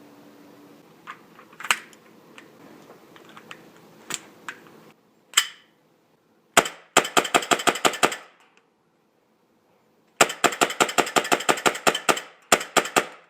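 HPA-converted KSC P226R gas blowback airsoft pistol firing: a few handling clicks, then one shot, then a fast string of shots at about seven a second for a second. After a pause of about two seconds comes a longer string of about two seconds, ending in three more quick shots.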